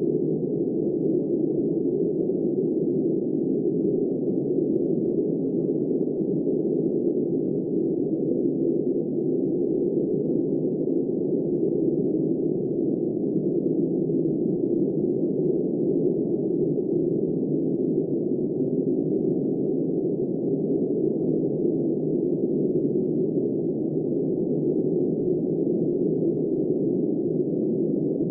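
Steady wind noise, low and muffled, holding an even level with no gusts, breaks or other events.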